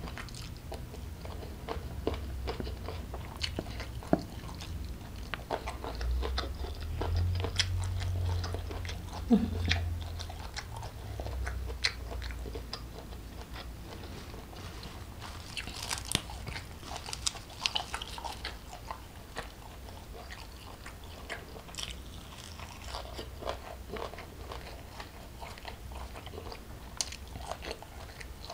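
Close-miked chewing and crunching of food eaten by hand: rice, spicy prawns and raw vegetables such as peeled petai beans, with many short sharp crunches and wet mouth clicks.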